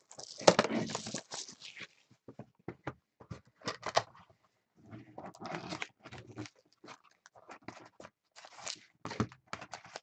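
Cardboard trading-card box torn open, loudest in the first second and a half, followed by rustling and crinkling of the foil-wrapped card pack as it is handled and pulled out, with scattered small clicks.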